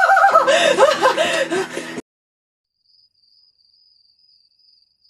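A boy's voice yelling, cut off abruptly about two seconds in. After a moment of dead silence, faint steady cricket chirping follows.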